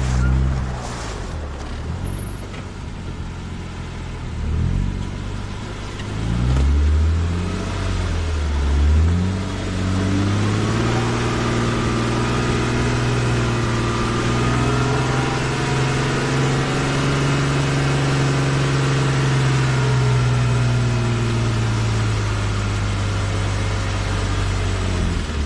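Jeep engine revving up in several short pulls over the first ten seconds, then running steadily under load with its pitch slowly rising and falling.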